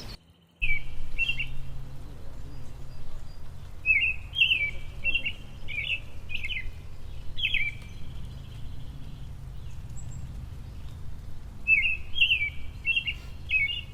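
A songbird singing in three groups of quick, chirping phrases, over a steady low background rumble.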